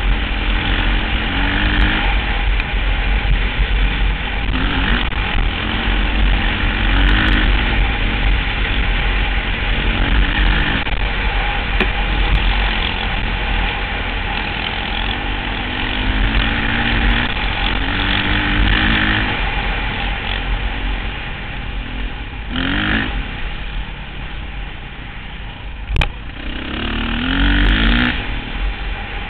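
Dirt bike engine running under way on a trail, its pitch climbing in repeated sweeps as the rider opens the throttle and shifts, over a steady low rumble of wind on the microphone. A single sharp knock near the end.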